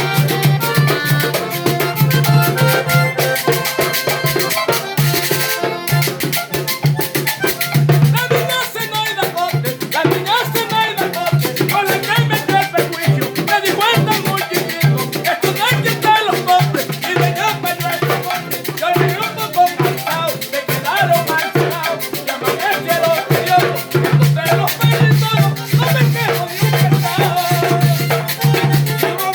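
Salsa music with a steady beat and dense percussion.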